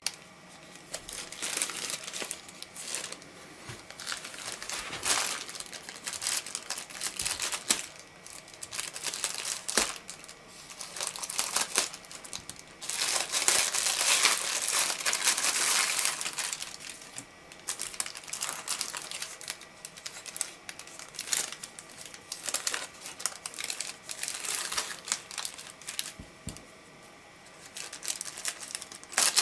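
Plastic packaging crinkling and rustling in irregular bursts as a grey poly mailer bag is handled and opened by hand and the item inside, wrapped in a clear plastic bag, is pulled out. Loudest about halfway through.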